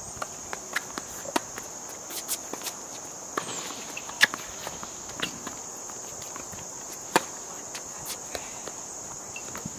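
Tennis ball struck by racquets on a hard court, two sharp hits the loudest about four and seven seconds in, with footsteps and shoe scuffs between, over a steady high-pitched insect drone.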